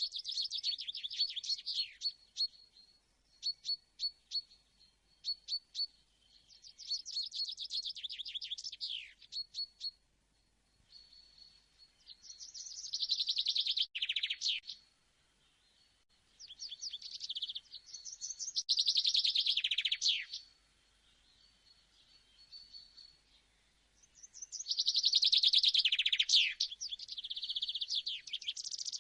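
Songbirds chirping and singing: runs of short, high single chirps a few per second, broken by fast trilling phrases about two seconds long that sweep downward at their ends.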